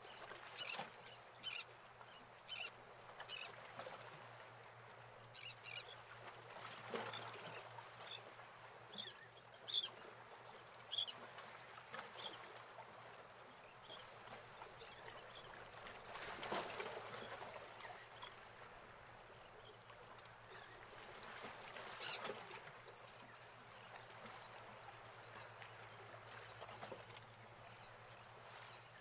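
Birds calling, short high chirps and squawks scattered throughout, with a quick run of calls about 22 seconds in, over a steady low hum.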